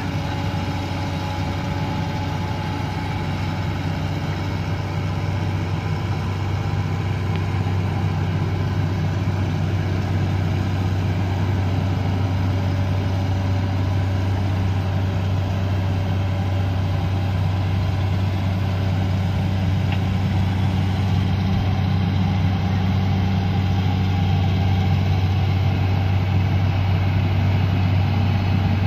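JCB JS210 tracked excavator's diesel engine running steadily as the machine swings round and crawls down off a truck bed, a deep continuous hum that grows a little louder toward the end.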